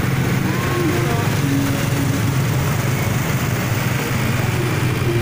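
Small motorbike engines running steadily at low speed, a continuous even drone.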